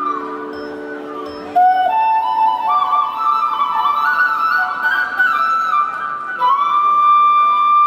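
Music led by a flute playing a slow, stepwise melody over a few low held notes at the start, settling on a long held note near the end.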